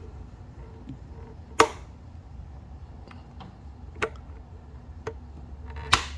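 Sharp clicks and knocks of small parts being handled while a motorcycle speedometer housing is taken apart. There is a loud click about one and a half seconds in, two smaller ones later, and a sharp clatter near the end, over a steady low hum.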